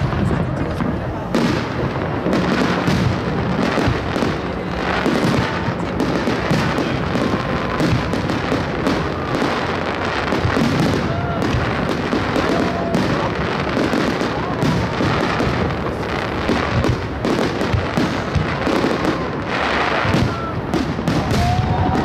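Continuous barrage of aerial firework shells bursting overhead: a rapid, unbroken run of bangs and crackling.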